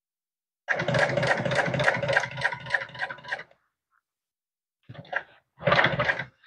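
Industrial sewing machine stitching vinyl: one run of about two and a half seconds at about five stitches a second, tapering off as it stops, then two short bursts of stitching near the end.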